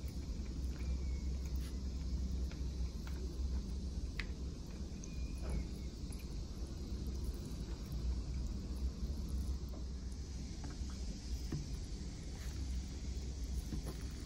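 A steady low rumble, with faint scattered clicks and scrapes of a metal fork pulling apart braised chicken in a plastic bowl.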